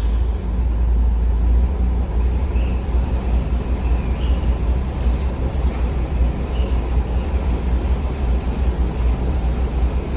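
Toyota FJ40's 2F inline-six petrol engine idling with a steady low rumble just after starting.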